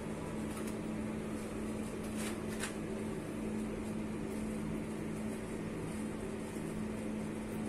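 Steady low machine hum with a constant noise haze underneath, unchanging throughout.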